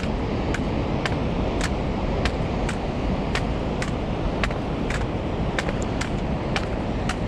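Footsteps on a cobbled stone path at a steady walking pace, about two crisp steps a second, over a steady loud rumble of wind and breaking sea surf.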